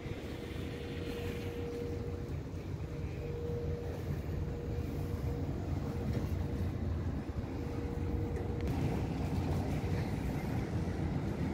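Boat engine running steadily: a low rumble with a constant mid-pitched hum over it, slightly louder near the end.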